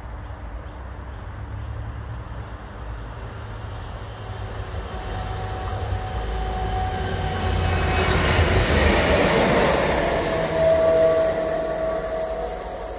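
A pair of diesel locomotives running light through a station: their engine rumble builds as they approach, is loudest as they pass about eight to eleven seconds in, with a steady whine among the noise, then fades as they move away.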